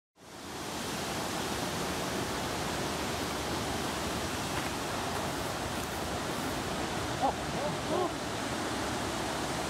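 Steady, even rushing outdoor noise that fades in right at the start, with a few faint, short rising-and-falling sounds about seven and eight seconds in.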